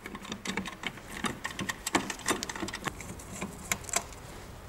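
Wheel nuts being spun off the studs of a steel car wheel with a breaker bar and socket, then by hand: an irregular run of light metallic clicks and rattles.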